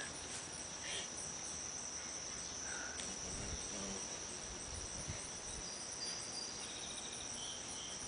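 A steady, high-pitched insect chorus, one unbroken drone.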